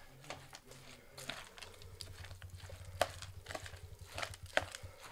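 A metal spoon and a hand mixing a moist, grainy cabbage-roll filling of rice, chopped onion, tomato paste and herbs in a plastic tub: irregular clicks, scrapes and squelches, the loudest about three seconds in and again near the end.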